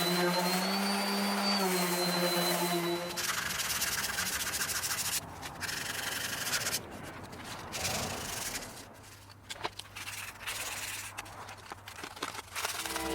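A power sander's motor runs steadily, then stops about three seconds in. Sandpaper rubbing on a wooden board follows in uneven strokes with short pauses.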